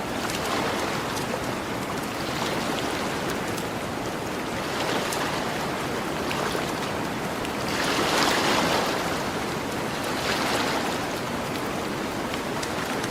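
Gentle ocean waves washing onto a beach, swelling every two to three seconds, with a campfire crackling in small scattered pops.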